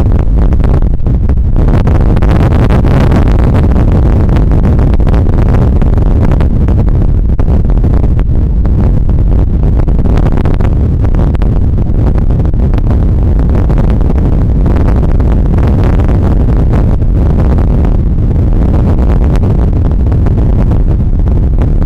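Storm wind buffeting the microphone over heavy surf: a loud, steady, deep rumble of roaring noise that swells every few seconds as waves break.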